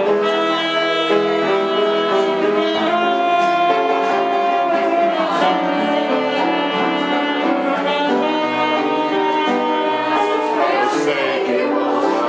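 Saxophone playing a melody in held notes with upright piano accompaniment.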